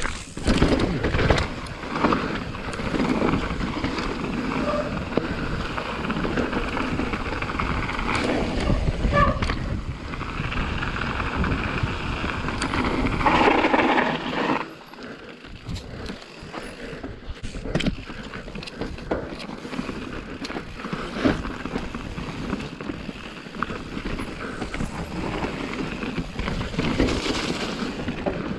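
Mountain bike riding a rough dirt trail: steady tyre and ride noise broken by many rattles and knocks from the bike over bumps. It grows louder about halfway through, then drops away for a while.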